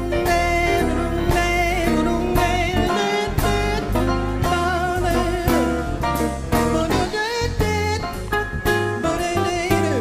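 Live jazz band playing, with a woman's voice singing improvised, sliding runs over a walking bass line and drums.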